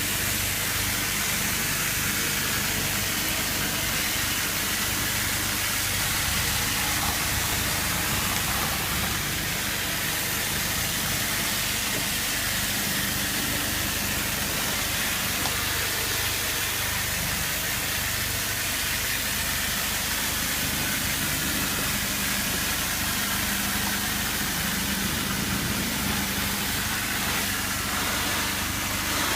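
Pressure washer running steadily: a low engine hum under the constant hiss of the water spray.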